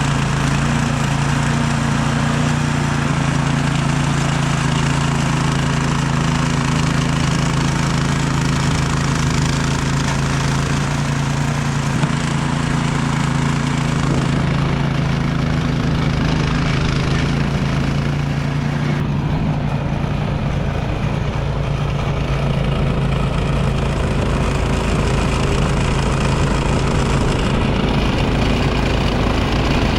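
Craftsman snowblower's petrol engine running steadily under power, with a constant low hum; the higher hiss thins out about two-thirds of the way through.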